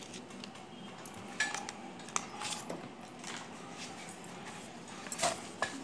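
A few faint clicks and light taps over low room noise, the loudest about five seconds in.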